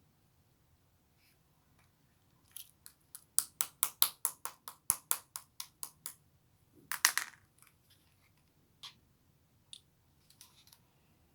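Pink marbled slime being played with by hand, giving a quick run of sharp clicking pops, about five a second, then a louder cluster of pops about seven seconds in, and a few scattered clicks after.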